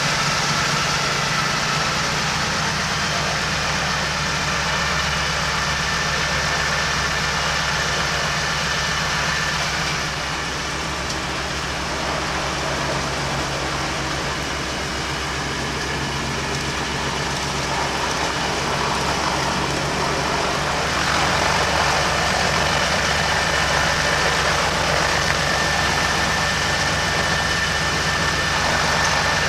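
Noorduyn Norseman's Pratt & Whitney Wasp radial engine running at low ground power, heard from inside the cabin. It drones steadily, easing off a little about ten seconds in and picking up again about twenty seconds in.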